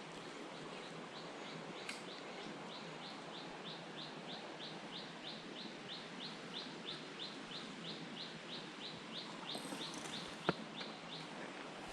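A bird's short high chirp, each note dipping slightly in pitch, repeated steadily about three times a second over the even hiss of a running jungle stream. A single sharp knock comes near the end.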